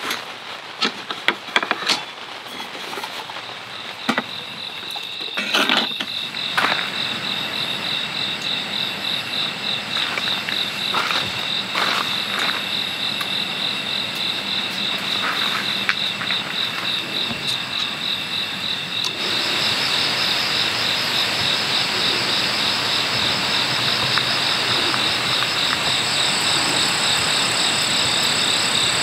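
Crickets chirping in a steady, rapidly pulsing trill, with a few scattered clicks and knocks in the first seconds. About two-thirds of the way through, a louder steady hiss and a second, higher trill come in.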